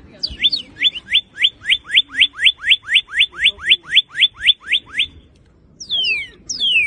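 Northern cardinal singing: a rapid run of down-slurred whistled notes, about four a second, for some five seconds, then after a short pause two long falling slurs.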